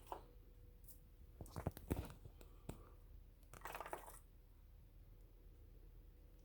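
Faint, irregular clicks and ticks, then a short scratchy rustle about three and a half seconds in: an unidentified noise from inside a wall, which the uploader likens to footsteps in mud.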